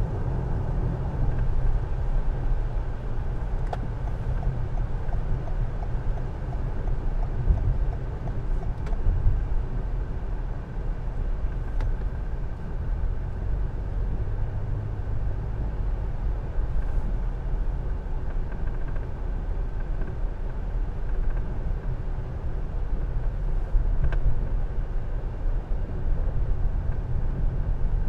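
Steady road noise of a car driving on a rain-wet road, heard inside the cabin: a low rumble of tyres and engine with a light hiss.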